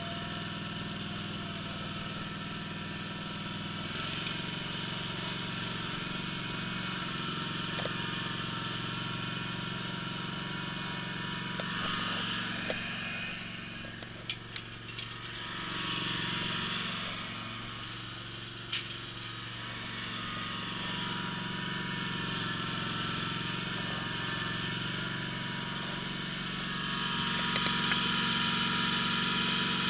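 Scag zero-turn mower engine running steadily while mowing. Its note dips in loudness for a few seconds around the middle, with a few light clicks, then comes back up and is loudest near the end.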